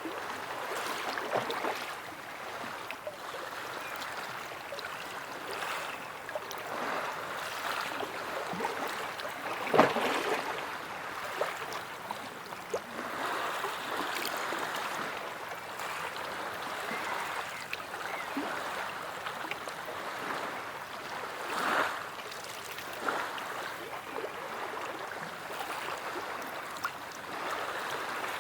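Sea waves washing in, a continuous watery rush broken by irregular sharper splashes. The loudest splash comes about ten seconds in, and another a little after twenty seconds.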